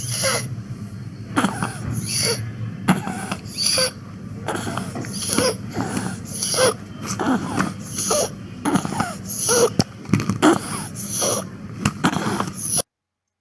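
A child's biphasic stridor: harsh, pitched noisy breathing on both the breath in and the breath out, in quick repeated breaths, caused by a foreign body lodged in the larynx. The breathing sounds cut off suddenly near the end.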